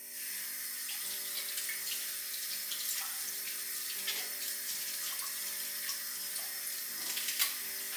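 Tap water running steadily into a sink, with scattered small knocks and a louder knock near the end.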